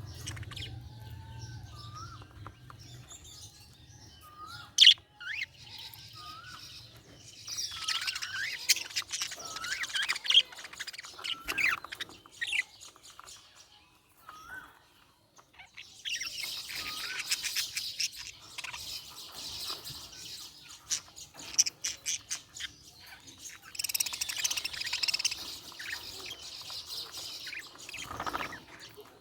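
Budgerigars chirping and warbling, with dense bursts of chatter coming in three waves and one sharp, loud call about five seconds in.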